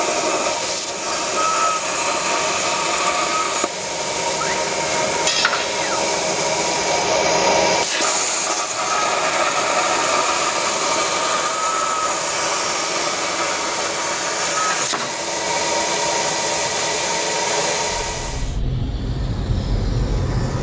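CNC plasma torch on a MasterPipe Mini pipe profiler cutting steel pipe: a loud, steady hiss of the plasma arc with a faint whine in it. About eighteen seconds in the hiss stops and a low rumble takes over.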